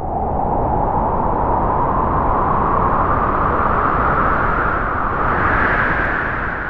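A loud, steady rush of wind-like noise whose pitch slowly rises, then fades near the end: a swelling sound effect under the smoke-filled title reveal.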